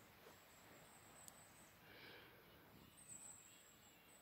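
Near silence: faint background noise only.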